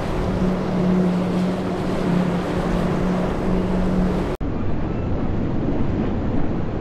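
A center-console boat's outboard engines run at speed with a steady drone over the hiss of water and wind. About four seconds in the sound cuts to a rougher rush of spray and wind as the boat drives through breaking waves, with the engines faint beneath it.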